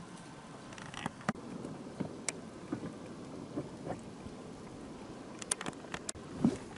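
Quiet water ambience, gentle lapping around a small boat, with scattered sharp clicks and ticks, a quick run of them about five to six seconds in.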